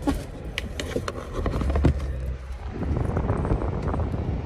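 Car cabin noise: a steady low rumble of engine and road noise that builds after about a second and a half. A few scattered clicks and knocks come in the first two seconds.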